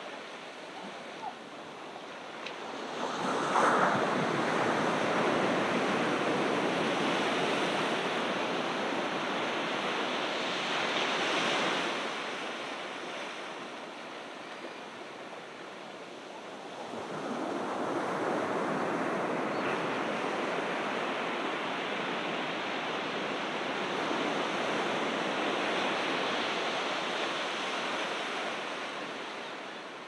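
Ocean waves breaking and washing up a beach in two surges. The first breaks sharply a few seconds in and rushes for about eight seconds. The second builds more gradually just past the middle and fades near the end.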